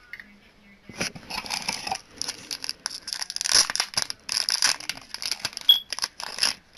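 Packaging crinkling and tearing in irregular bursts from about a second in, as a can badge is taken from its wrapper, with a brief squeak near the end.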